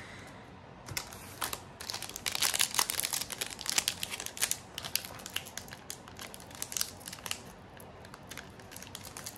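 The foil wrapper of a Pokémon card booster pack crinkling and crackling as it is handled and opened, a dense run of sharp crackles starting about a second in.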